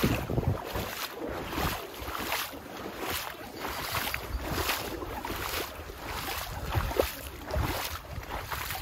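Footsteps wading through floodwater, a slosh with each stride, roughly one every second.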